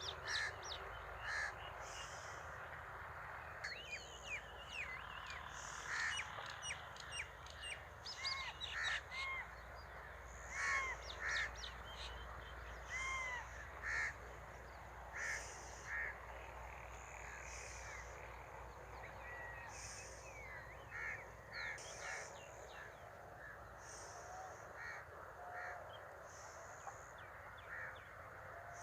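Birds calling outdoors: many short, repeated calls and quick chirps at irregular intervals, over a steady background hiss.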